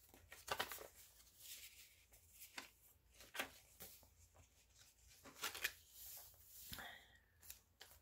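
Faint, scattered rustles and light taps of thick paper pages and tucked-in cards being turned and handled in a handmade junk journal.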